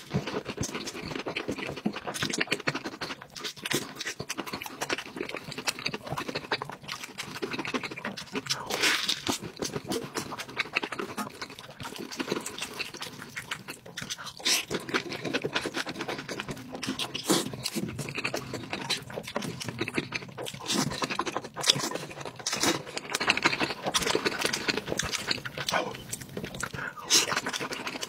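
Close-miked eating sounds: biting and chewing a fried cheese corndog, then slurping and chewing saucy noodles. It is a steady stream of wet, crackling chews, with a few louder bites or slurps.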